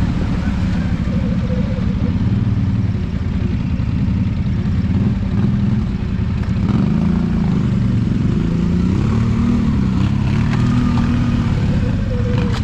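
Twin-cylinder ATV engine running under way, its revs rising and falling several times in the second half.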